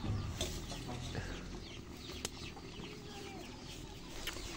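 Chickens clucking with small birds chirping in the background, and a few sharp clicks.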